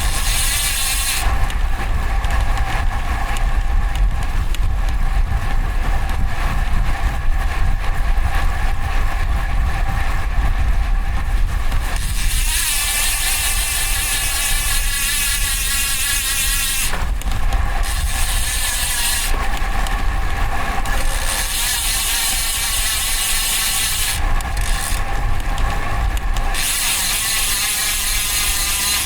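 Road bike riding on city streets heard from a bike-mounted camera's external microphone: a steady rumble of wind and road noise, with several stretches of louder hiss as traffic passes.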